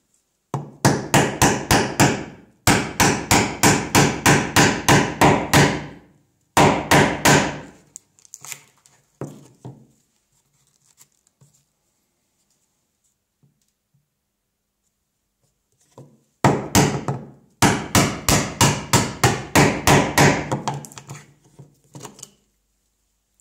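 Mallet striking a chisel chopping a mortise in white oak, in quick runs of about four blows a second. In a pause in the middle only faint taps and scrapes are heard.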